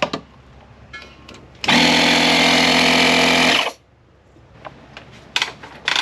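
Electric air compressor motor of a Slime Pro-Series garage inflation station starting up just after it is plugged in, running steadily with a hum and a hiss for about two seconds, then cutting off. Light clicks and rattles come before and after it.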